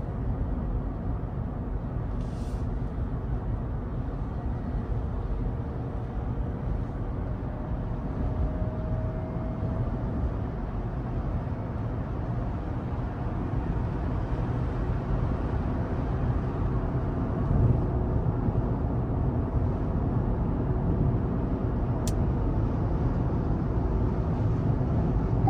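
Cabin noise inside a Rivian R1T electric pickup at highway speed: steady low road and tyre rumble with wind noise. A faint whine rises briefly about eight seconds in, and there is a sharp click near the end.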